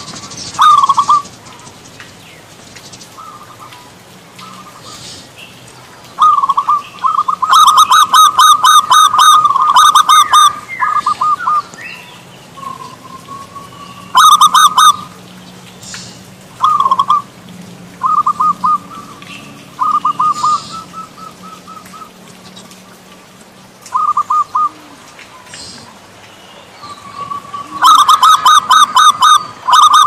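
Zebra dove (perkutut) singing: phrases of rapid, repeated cooing notes, with single quieter notes between. The longest phrase comes about a quarter of the way in and another near the end.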